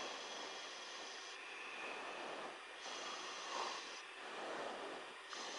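Faint hiss of an open aircraft intercom and radio feed, its upper part switching on and off every second or so, with a couple of soft swells.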